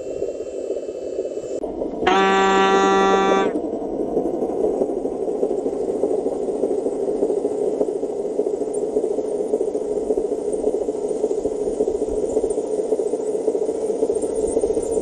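A single horn honk about two seconds in, one steady tone lasting about a second and a half. It sounds over the continuous whir of an RC dump truck's electric drive and gears.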